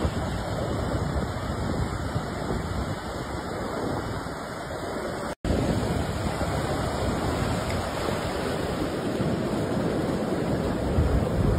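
Ocean surf breaking and washing on a sandy beach, a steady rushing noise with some wind on the microphone. It drops out for an instant about halfway through, where one clip is cut to the next.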